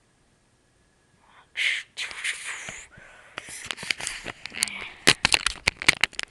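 Handling noise from the camera being moved: rustling and scraping close to the microphone begin about one and a half seconds in, then turn into a fast run of clicks and taps near the end.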